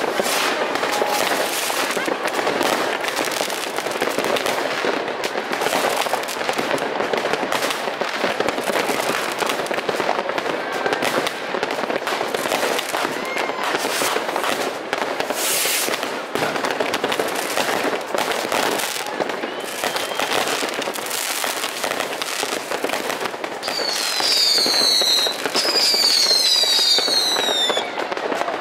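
Fireworks banging and crackling without a break, many rockets and firecrackers overlapping. From about 24 seconds in, several whistling fireworks each give a falling whistle, one after another.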